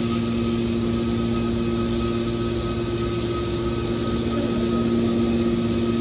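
Hydraulic power unit of a large scrap-metal baler running, a steady hum with a constant whine from the pump as the baler's hydraulic cylinders move.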